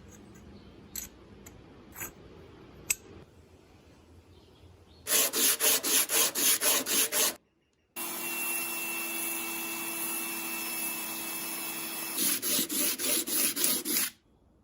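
Hand abrading of rusty metal on an old wrench. A few light clicks, then rhythmic back-and-forth scraping strokes at about four to five a second. After a brief break comes a steady unbroken stretch of scraping, then rhythmic strokes again near the end.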